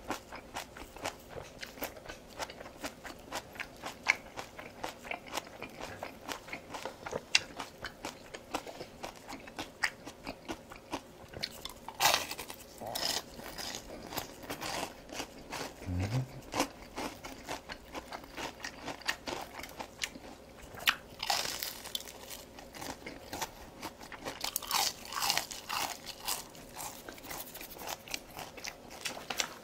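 Crisp crunching and chewing of battered deep-fried shrimp, a steady run of small crackles with a few louder bites.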